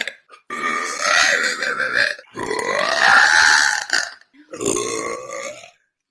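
A woman burping: three long belches, each about a second and a half, with short breaks between them.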